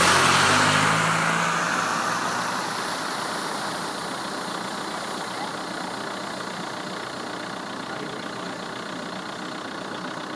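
A car drives past through floodwater, its engine and the water noise loudest at the start and fading over the next few seconds as it moves away, leaving a steady rush of noise.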